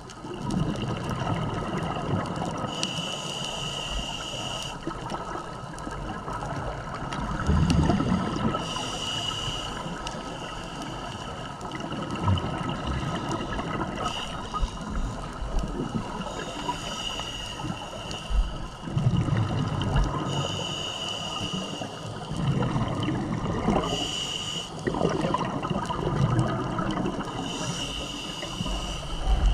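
Scuba diver breathing through a regulator underwater: a hissing inhale every few seconds, alternating with rumbling, bubbling exhales.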